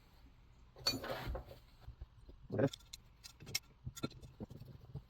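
Scattered light clicks, taps and short rustles of tools and small engine parts being handled on a workbench, over a faint steady hum.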